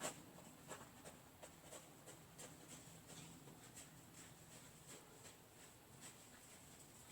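Near silence with faint, irregular light ticks and one louder knock right at the start.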